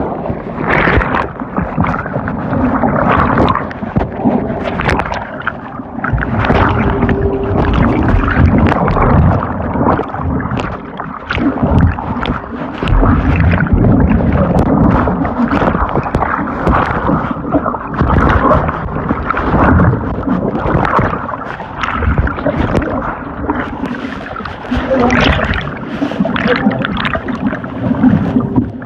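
Floodwater churning and gurgling close to the microphone, loud and constantly surging, as a truck is swept off a flooded road.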